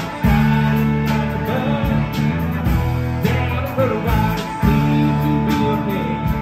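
Live rock band playing: electric guitars over bass guitar and a drum kit keeping a steady beat.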